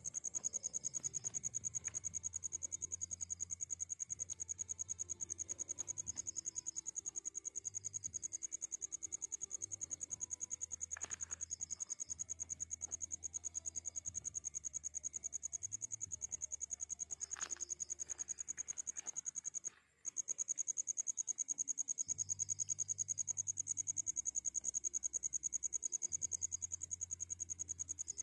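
A cricket trilling on and on, a high, rapidly pulsing note that breaks off for a moment about twenty seconds in and then starts again.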